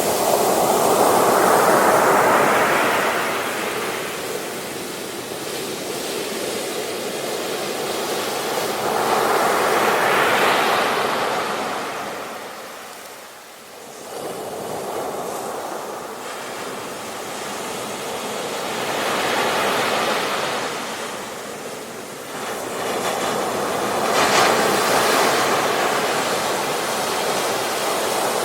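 Ocean surf: waves breaking and washing up a beach in slow swells, four surges in all, with a short lull about halfway.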